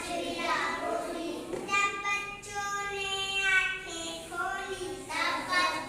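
A young girl singing a Hindi children's poem in a high sing-song voice, drawing out long held notes.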